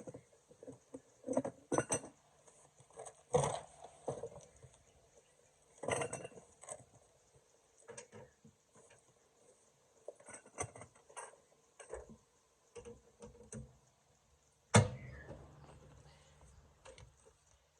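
Metal hand tools clinking and clanking against each other and the vehicle's underside in scattered, irregular knocks, with one loud sharp clank about 15 seconds in.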